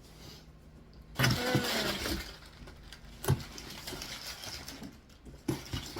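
Packing paper inside a freshly opened cardboard box rustling and crinkling as it is handled, loudest for about a second near the start, with a single sharp knock about three seconds in.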